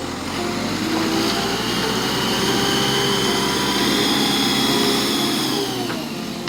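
Backhoe loader's diesel engine revving up under load, with a high whine over it; it holds high for several seconds and drops back near the end.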